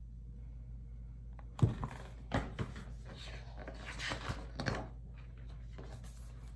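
Paper rustling with a few soft knocks, from a picture book's page being turned and handled. It starts with a thump about a second and a half in and settles after a few seconds, over a low steady room hum.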